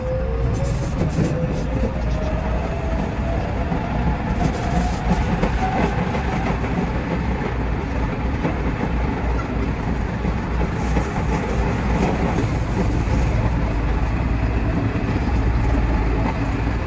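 A JR West 207 series electric train running, heard from inside the driver's cab: a steady rumble of wheels on rail with some clacking. Over the first several seconds the GTO-VVVF inverter's whine rises in pitch as the train gathers speed.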